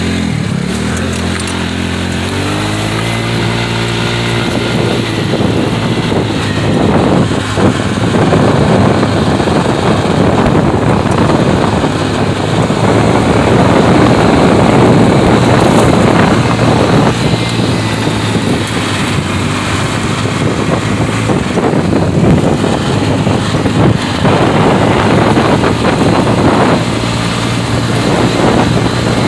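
Trailmaster XRS mini buggy's engine, freshly fitted with a 150cc big bore kit, revving up with a rising pitch as the buggy pulls away, then running hard at speed with a rough, noisy note over a gravel track. Near the end the engine settles back to a steadier, lower note.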